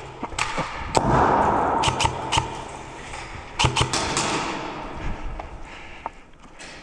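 Airsoft gunfire: about ten sharp cracks at uneven spacing, some in quick pairs, over a rustling noise that fades in the second half.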